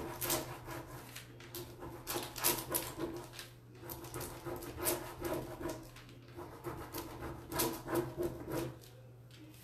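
Fingers rubbing and pressing over the clear plastic carrier sheet of an Iron Orchid Designs transfer, crinkling and rustling in a string of short irregular strokes. The crinkle is the sign of the sheet coming loose and lifting from the design.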